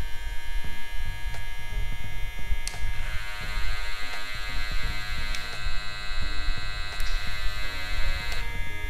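Cordless hair clipper running steadily with a buzzing whine. About three seconds in, a higher, brighter tone joins it and drops out again about eight and a half seconds in.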